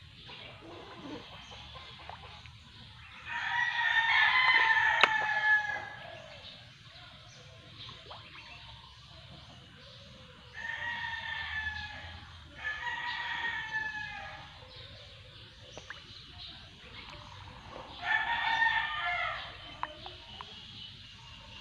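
Rooster crowing: four long crows, the loudest about three seconds in and the others near the middle and near the end, each trailing off downward.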